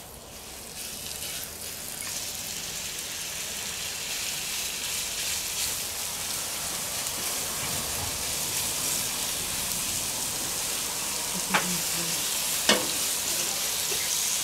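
Raw turkey meat sizzling on a hot gas-grill griddle plate, the frying hiss building and growing louder as the meat goes down and is spread out. Two sharp clicks near the end.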